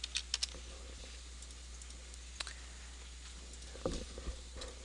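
Last few computer keyboard keystrokes in the first half-second, then a few isolated clicks, over a faint steady low hum.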